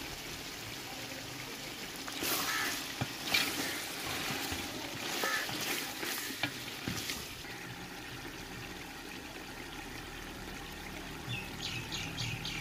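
Chicken frying in oil with masala in a large aluminium pot, a steady sizzle. From about two seconds in to about seven, it swells in louder surges of sizzling and spatula scraping as it is stirred with a wooden spatula.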